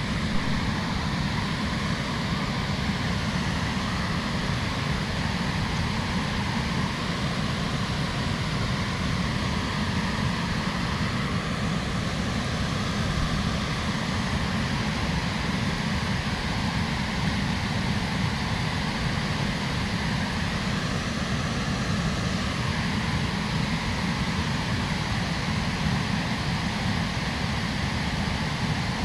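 Steady rush of water pouring over a dam spillway weir.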